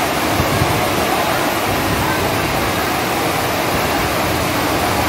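Heavy rain pouring down, a loud steady rushing hiss, with the voices of a large crowd underneath.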